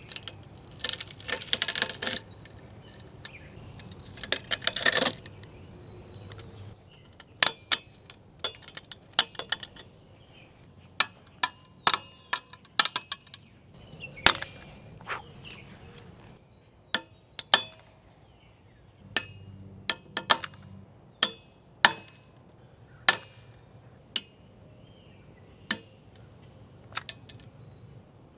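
Test bars of wood and PETG-CF 3D-printed plastic being twisted to failure with a torque wrench: two stretches of dense crackling in the first five seconds, then a series of sharp cracks and snaps, about one a second, as the material gives way.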